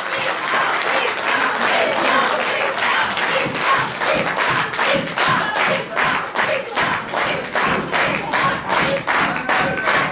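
Audience applause that turns, a few seconds in, into rhythmic clapping in unison at about three claps a second.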